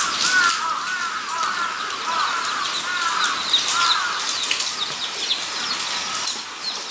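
Guinea pigs squeaking: a quick run of short chirping squeaks, each rising then falling, that thins out after about four seconds, over a steady hiss.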